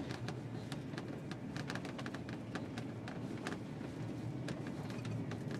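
1989 Ford F-350 brush truck heard from inside the cab, driving slowly over a snowy trail: a steady low rumble from the engine and drivetrain, with many irregular sharp clicks and crackles over it.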